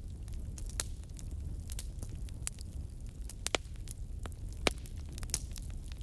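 Outdoor bonfire crackling: scattered sharp pops and snaps of burning wood over a steady low rumble, with the loudest pops about three and a half and nearly five seconds in.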